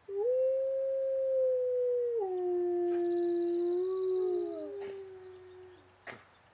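Wolf howling: one long held howl that starts just after the opening, steps down lower about two seconds in and fades out before six seconds. A second, higher howl overlaps it from about two seconds in. A sharp click comes near the end.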